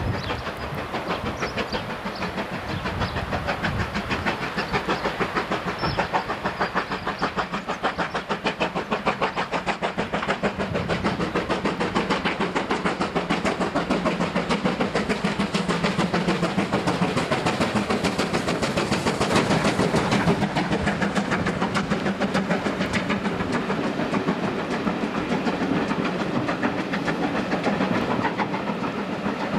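GWR 5101-class 2-6-2 prairie tank locomotive No. 4160 working a passenger train under steam: a rapid, even run of chimney exhaust beats with the clatter of wheels on rail joints. It grows louder as the engine approaches, peaks about two-thirds of the way through as it passes closest, then eases slightly.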